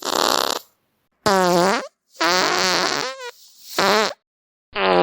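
A string of fart sound effects: five short farts separated by brief silences. Most slide down in pitch, and the longest breaks into a fluttering wobble at its end.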